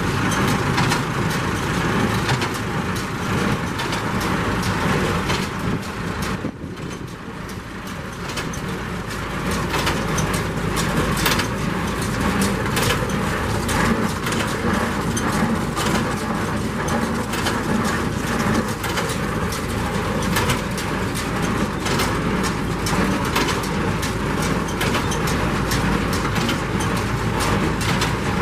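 New Holland 376 small square baler running stationary off a tractor's PTO, its mechanism clattering and clicking steadily. The noise dips briefly about a quarter of the way in, then picks back up.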